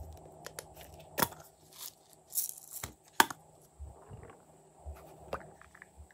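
Hard plastic toy containers clicking and knocking as they are opened and handled, with a brief rattle of sprinkles shaken out about halfway through. Several separate sharp clicks; the loudest comes a little past halfway.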